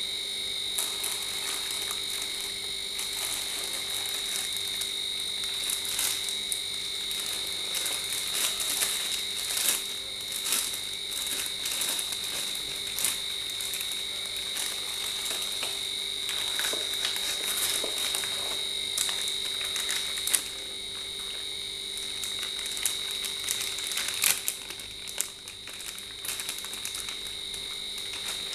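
Crinkling of a plastic bag and scattered clicks of hard plastic parts as a microphone shock mount is handled and lifted out of a foam-lined box. Under it runs a steady high-pitched insect chorus.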